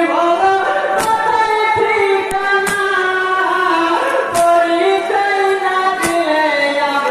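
Men singing a Bengali matam jari, a Muharram lament, together in a drawn-out melodic line, with a sharp beat about every second and a half.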